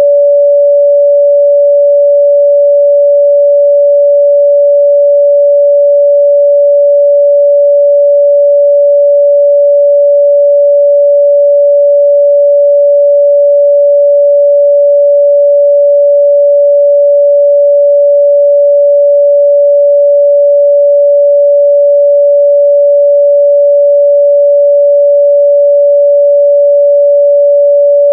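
A pure 574 Hz sine-wave test tone, held steady and loud at one pitch.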